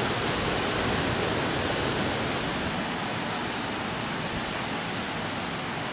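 A steady, even rushing noise with no distinct events, easing slightly in level a couple of seconds in.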